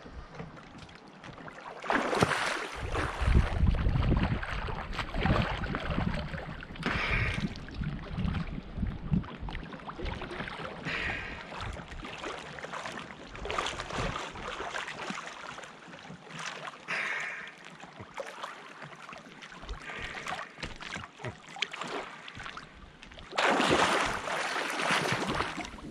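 Water splashing and sloshing in irregular bursts as a swimmer moves through the water, loudest about two seconds in and again near the end.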